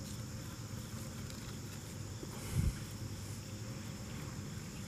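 Steady chorus of insects chirping, with a brief low thump about two and a half seconds in.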